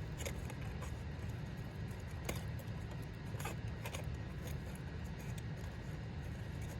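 Scattered light clicks and taps of hand tools and engine parts being handled, over a steady low hum.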